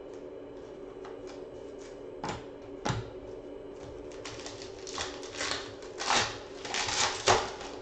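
Trading cards being handled, with a couple of sharp clicks, then a foil card pack wrapper crinkling in a string of crackly bursts over the last few seconds. A steady low hum runs underneath.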